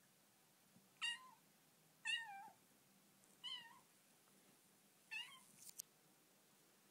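Bengal kitten giving four short, high-pitched, squeaky meows about a second or so apart, with a small click just after the last one.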